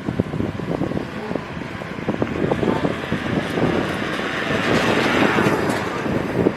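Wind buffeting the microphone, with irregular knocks and rattles as of moving outdoors; the hiss swells in the second half.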